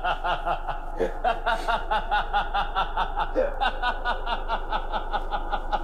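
A man laughing hard: a long, unbroken run of quick, even giggles, about five a second.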